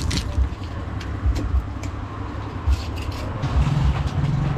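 A knife working a tilapia on a wooden chopping block: a handful of short, sharp scrapes and taps. Under them runs a continuous low rumble, joined by a steady low hum about three and a half seconds in.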